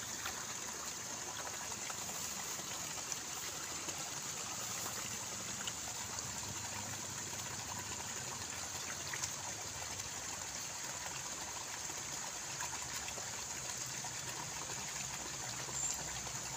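Shallow water trickling steadily through a muddy rice-field channel, with a few faint clicks.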